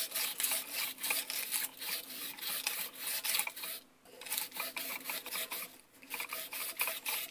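220-grit sandpaper scratching against the copper commutator of a golf cart starter generator's armature as the armature is turned by hand, cleaning the brush contact surface. The sanding runs in quick strokes, with two short breaks about four and six seconds in.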